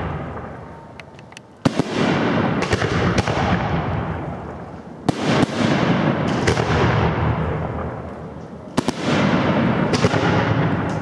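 Aerial firework shells bursting overhead: three sharp bangs about three and a half seconds apart, each trailing off over two to three seconds, with smaller pops and cracks in between.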